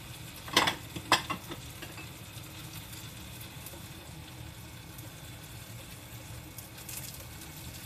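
Steady sizzle of gyoza-wrapper rolls frying in a pan. Two short, sharp clicks come about half a second and a second in.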